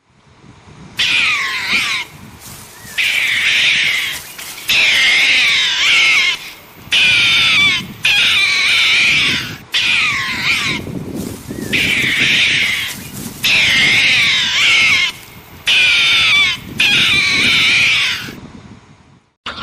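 An animal calling over and over: about ten loud, high calls, each a second or two long, wavering in pitch and sliding down at the ends, with short gaps between them.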